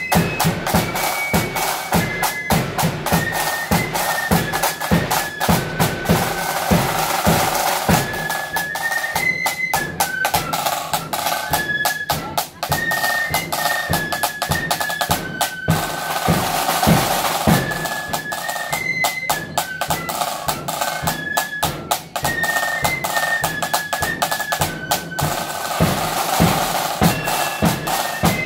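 Marching band playing a fast tune: a high wind melody over continuous rattling side-drum strokes and rolls, with a bass drum beat.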